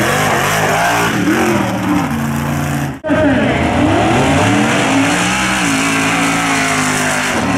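Mega truck's engine revving hard and rising and falling in pitch over and over as it runs the dirt course. The sound drops out for an instant about three seconds in, then the revving carries on.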